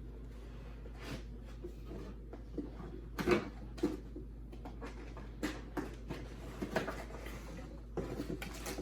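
Computer-part packaging being handled: scattered rustles, taps and knocks, the loudest about three seconds in.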